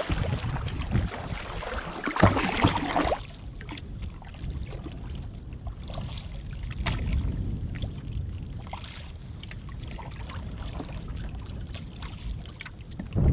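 Canoe paddle strokes splashing in lake water. From about three seconds in it goes quieter: water lapping and trickling along the canoe's hull with a low rumble of wind.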